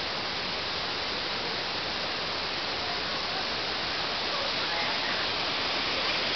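Steady rush of a fast-flowing river running over rapids, growing a little louder in the second half.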